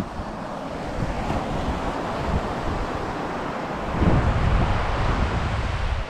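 Sea surf washing on the shore, with wind blowing across the microphone. It grows louder about four seconds in.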